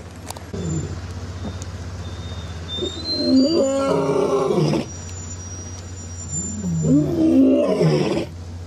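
Male lion roaring: a short low moan near the start, then two long, loud roars, the first about three seconds in and the second about six and a half seconds in, each rising and falling in pitch.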